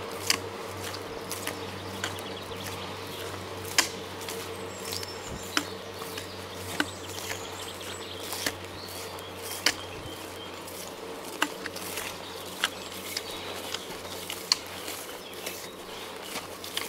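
Footsteps of a hiker walking uphill, sharp regular steps about every second and a half, with faint birds chirping.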